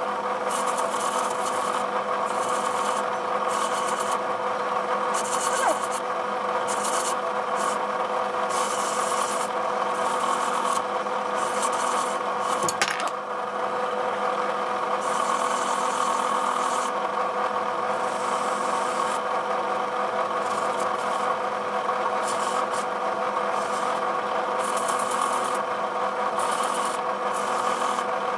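A small electric power tool's motor running at a steady speed, with a rasping hiss that comes and goes every second or so as it grinds away at the workpiece. A single sharp click about halfway through.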